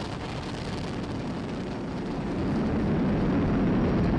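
Rumble of a Falcon 9's first stage in powered ascent, its nine Merlin 1D engines running at full thrust, swelling louder about two and a half seconds in.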